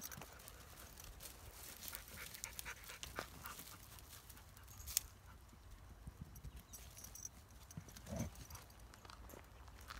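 Young Kangal dogs moving and jostling on grass and loose stones: scattered paw steps and scuffs, with a sharp knock about halfway through and a brief low sound a little after eight seconds.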